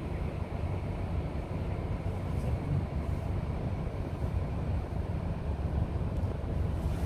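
A car's steady low road and engine rumble while driving through snow-covered streets, heard from inside the car.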